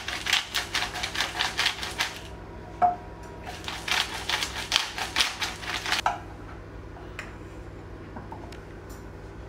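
Hand-twisted salt grinder (salt mill) grinding salt, its mechanism clicking rapidly in two runs of about two seconds each with a short break between. After that only a few faint taps are heard.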